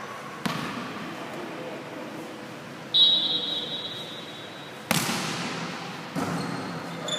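Volleyball play in an echoing gym: a steady high whistle blast lasting over a second, followed by sharp slaps of hands striking the ball, one loud hit about two seconds after the whistle and another a little over a second later. A lighter hit or bounce comes about half a second in.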